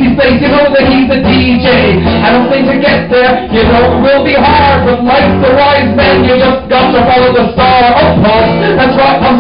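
Loud live music with a steady beat and a man singing into a microphone over it.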